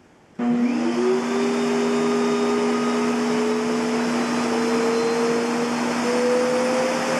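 Kenmore Progressive canister vacuum cleaner with a SIP Cinderson blower motor switched on about half a second in. Its motor spins up with a quickly rising whine, then runs with a steady rush of air while the whine keeps climbing slowly in pitch.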